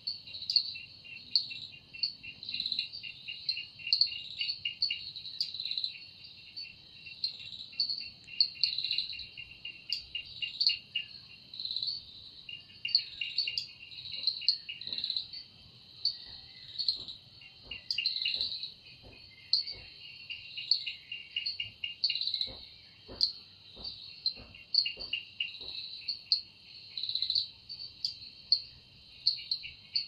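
Insects calling in chorus: a sharp chirp repeated a little more than once a second over a faster pulsing trill, with a run of faint ticks in the middle.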